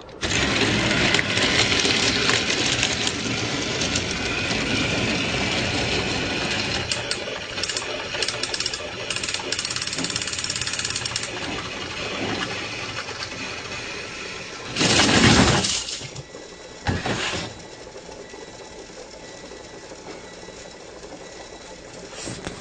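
Motorized toy trains whirring along plastic track with constant rattling and clicking, then a loud clattering crash about 15 seconds in and a shorter one about two seconds later, after which the sound is quieter and steadier.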